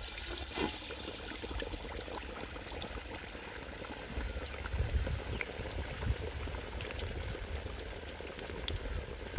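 Marinated chicken leg deep-frying in hot oil: a steady sizzle and bubbling with many fine crackles.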